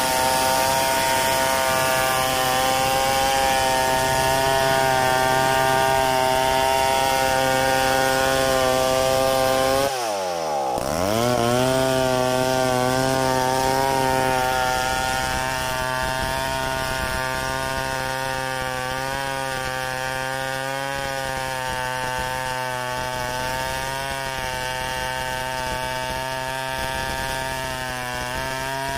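Stihl 070 two-stroke chainsaw running near full throttle while ripping lengthwise through a log in a freehand milling cut. About ten seconds in the engine note dips sharply and climbs back, and near the end it starts to drop.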